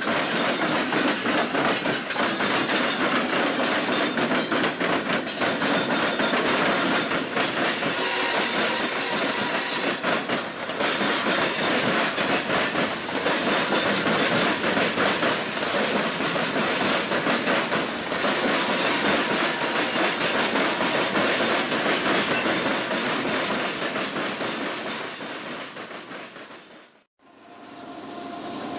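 Norfolk Southern freight train rolling past close by, locomotives then loaded scrap-metal gondola cars: a steady rumble and clatter of wheels on the rails, with thin high wheel squeals coming and going. The sound fades near the end and breaks off in a brief silence, after which a steady noise rises again.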